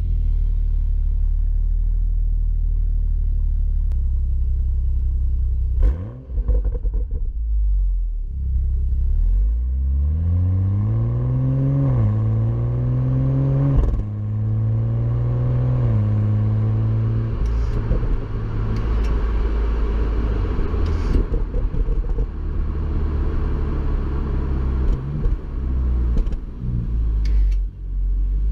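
BMW M235i's turbocharged inline-six exhaust note: running steadily at low revs, dipping briefly about six seconds in, then rising sharply under hard acceleration from about ten seconds in, with the pitch dropping at upshifts around twelve, fourteen and sixteen seconds before settling into a steady cruise with a few sharp cracks.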